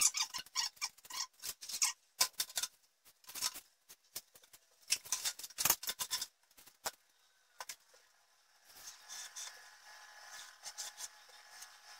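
Red snap-off utility knife and white foam board being handled and cut: a run of irregular sharp clicks and scratchy strokes, then a softer, steadier hiss over the last three seconds.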